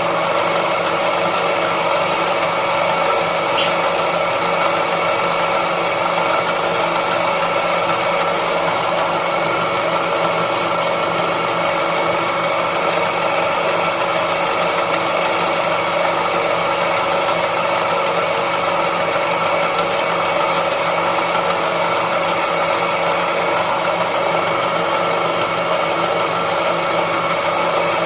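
Electric noodle-making machine running steadily, a constant motor hum with a few brief clicks.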